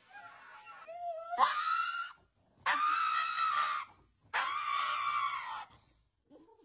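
Dog screaming: a few faint short whines first, then a cry rising into a held scream about a second in. Two long, drawn-out screams follow, each over a second, from a pug while its paw is held for nail trimming.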